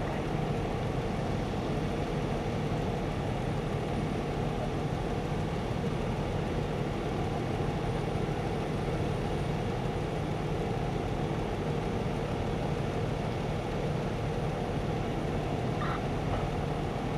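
Steady low rumble of an idling engine, unchanging throughout.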